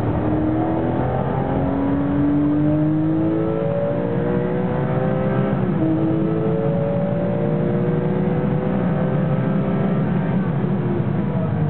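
Porsche 996 GT3 RS race car's 3.6-litre flat-six heard from inside the cabin, accelerating hard. Its pitch rises steadily through each gear and drops back at the upshifts, clearly once about six seconds in.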